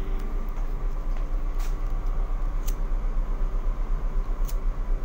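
Wind buffeting the microphone: a loud, gusting low rumble, with a faint steady hum underneath and three light clicks.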